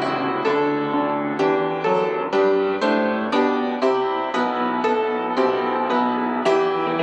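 Piano playing a lively run of notes, about two to three struck chords or notes a second.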